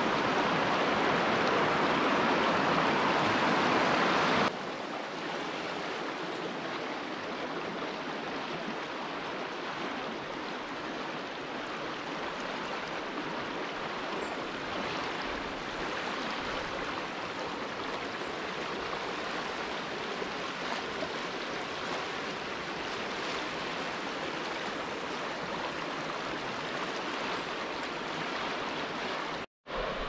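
Fast-flowing river rushing, a steady noise of running water. It drops abruptly to a quieter rush about four and a half seconds in, and cuts out briefly near the end.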